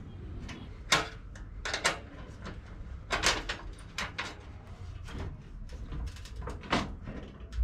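Scattered metal clicks and knocks as a spanner works bolts loose from a table saw's side extension and the bolts and tabletop are handled, about a dozen separate taps with no steady machine sound.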